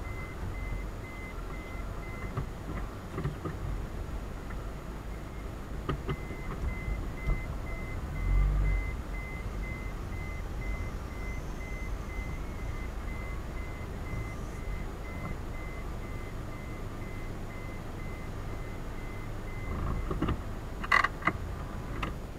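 Yamaha DragStar's V-twin engine running at low speed, a steady low rumble. A high beep repeats rapidly over it and stops near the end, and two sharp knocks come just before the end.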